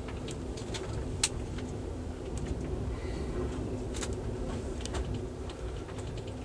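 Steady low rumble and hum of a passenger car rolling along the rails, heard from inside the coach. Scattered sharp clicks and ticks ride over it, the sharpest about a second in.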